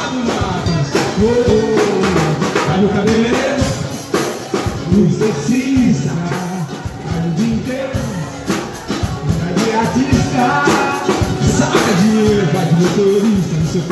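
Live band music: a man singing over a drum kit and percussion, with frequent cymbal and drum hits.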